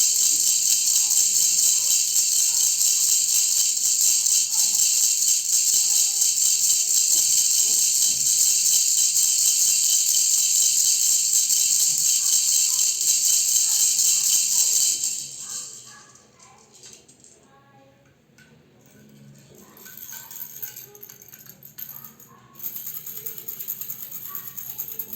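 Handheld baby rattle shaken fast and continuously, a dense steady rattle of loose beads. About fifteen seconds in it stops suddenly, leaving a few faint scattered clicks. Lighter rattling resumes near the end.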